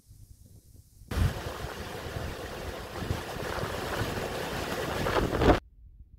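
Loud, steady rush of fast-flowing floodwater with wind on the microphone. It starts suddenly about a second in and cuts off abruptly near the end.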